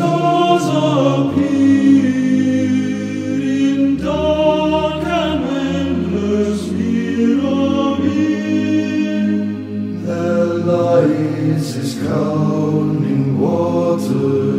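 Background music: voices singing a slow, chant-like melody in harmony over steady low tones, without clear words.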